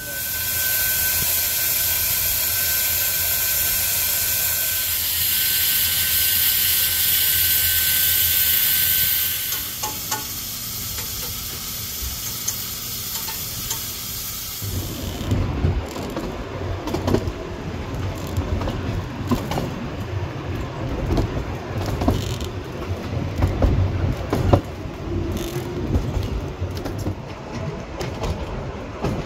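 Steam hissing loudly on a narrow-gauge steam locomotive's footplate, with a thin steady tone, for about the first ten seconds, then quieter. From about halfway through comes a steam train running, a low uneven rumble with frequent knocks.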